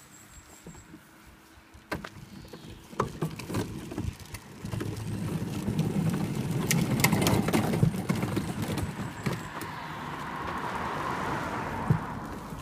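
Hard plastic wheels of a Little Tikes Cozy Coupe ride-on toy car rolling as it is pushed along a paved path: a rumble with clicks and knocks that builds about four seconds in and is loudest in the middle.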